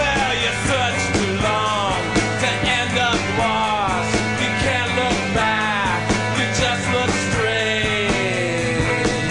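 Instrumental stretch of a rock song: a steady drum beat under a lead electric guitar whose notes repeatedly slide down in pitch, with no vocals.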